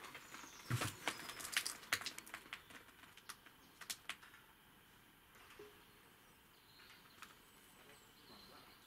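Footsteps on a littered floor inside a derelict railway carriage: a run of sharp knocks and clicks over the first four seconds, then the steps die away to a quiet hiss with a few faint bird chirps from outside.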